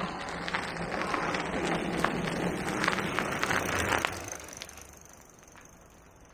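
Fat-tyre electric bike riding along a dirt track past the camera: tyres crackling and clicking over the ground, growing louder as it nears, then fading quickly once it has passed about four seconds in.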